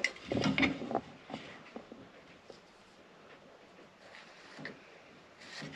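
A steel square being handled and set against a wooden plank: a few light knocks and scrapes in the first second, then faint pencil scratching as a cutting line is marked, with small ticks now and then.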